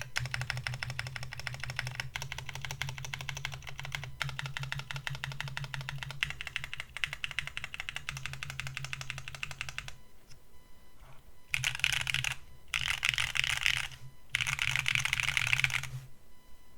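Mechanical keyboard with lubed IV Works Brevity tactile switches in an AV4 board, typed on quickly and continuously for about ten seconds. After a short lull come three denser bursts of keystrokes.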